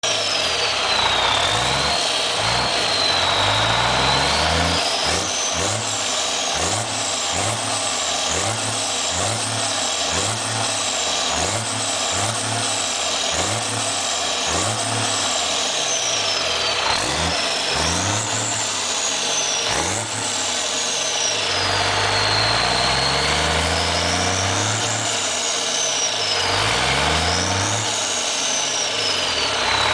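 Volvo FH12's 12-litre inline-six turbodiesel running on a test stand and being revved repeatedly: quick blips about once a second through the middle, then longer, slower rises and falls near the end. A high whistle rises and falls with the revs.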